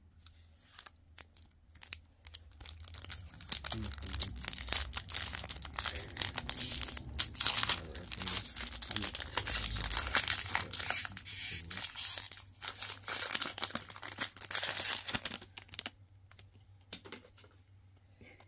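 Foil trading-card pack wrapper being torn open and crinkled, a dense crackling and rustling that builds from about four seconds in and dies away a couple of seconds before the end.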